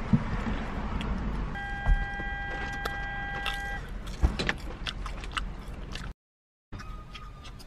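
Low steady rumble inside a car cabin with a few thumps and crackling handling noises, and a steady electronic beep tone held for about two seconds near the middle. The sound drops out for half a second near the end and comes back quieter.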